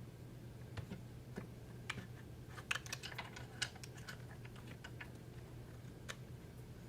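Scattered light clicks and taps of a wire being pressed into a slot in a framing nailer's plastic housing, busiest about three seconds in, over a steady low hum.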